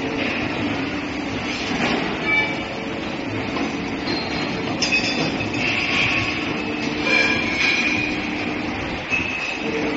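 CNC tube bending machine running while bending a square aluminium profile: a steady mechanical hum with several brief high squeals, the strongest around the middle.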